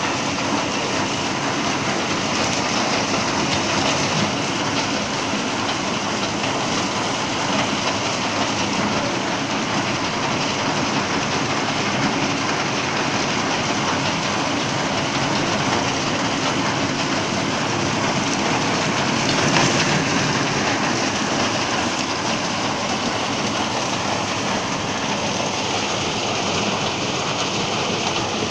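Tractor and a tractor-mounted, PTO-driven Yapel DG 140 reaper-binder running together while cutting tall reeds: a steady mechanical clatter and rushing noise, a little louder about twenty seconds in.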